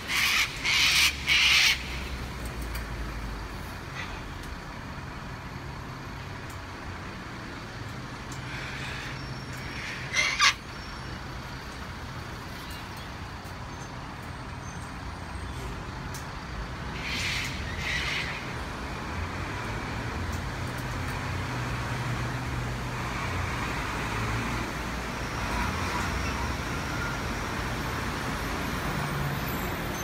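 Sulphur-crested cockatoos screeching: a quick run of about four harsh calls at the start, a short sharp sound about ten seconds in, and two more calls around seventeen seconds, over a steady low rumble of road traffic.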